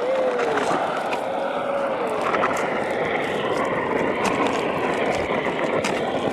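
A small kindling campfire, just lit with a strike-type fire starter, burning with a steady rushing hiss and scattered crackles.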